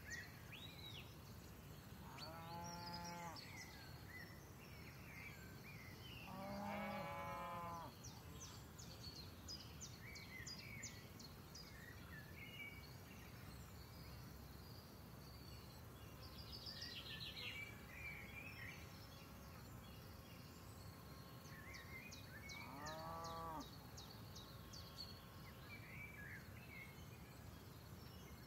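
Cattle mooing three times, a few seconds and then many seconds apart, each call about a second long and the second the loudest, over faint birds chirping.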